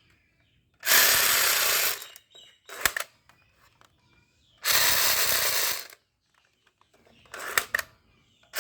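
Battery-powered toy police gun firing in bursts, a mechanical rattle lasting about a second each time, twice, with a third burst starting right at the end. Short clicks come between the bursts.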